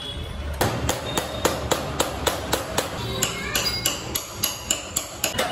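Rapid, even hammer taps on metal, about four blows a second, beginning about half a second in: working a fitting loose on a moped handlebar.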